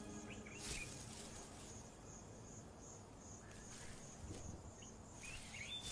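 Faint insects chirping in a steady, even pulse of about two to three chirps a second, with a couple of brief higher chirps near the start and the end.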